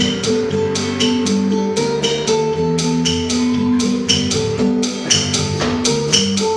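Live ensemble music: held guitar notes over a steady, quick rhythm of short percussive clicks.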